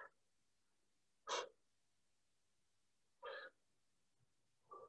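A man's faint, short exhalations, three of them about two seconds apart, breathing out with the effort of each deep squat.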